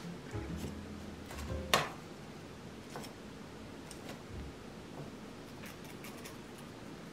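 Light clicks and taps of kitchen tongs on a ceramic plate as fried arancini are set down one by one, with one sharper click about two seconds in and a few faint ticks after.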